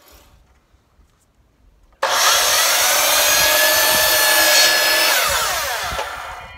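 DeWalt sliding compound miter saw starting up suddenly about two seconds in and cutting through a click-together flooring plank, then the blade winding down with a falling whine near the end.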